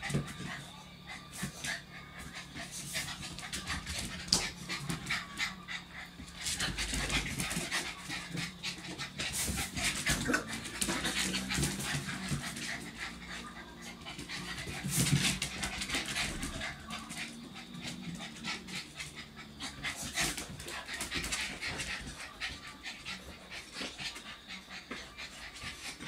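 Chow chow puppies panting and scuffling at play, with a steady patter of many quick ticks and rustles.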